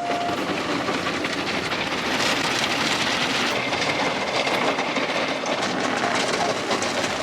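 Automatic car wash heard from inside the car: a steady rush of water spray and washing equipment working over the car's body.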